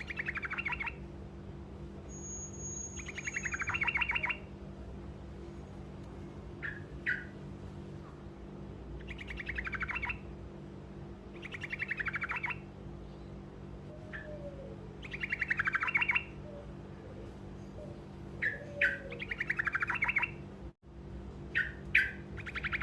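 Truco bird singing short rolling trills, each a rapid rattle of notes about a second long, repeated every few seconds with brief single chirps in between, over a steady low hum.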